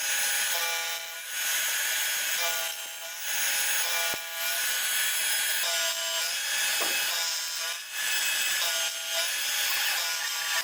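Machine tool cutting the tops off metal camshaft bearing cap blanks. Steady cutting noise with a ringing tone that comes and goes in passes every couple of seconds, and a sharp click about four seconds in.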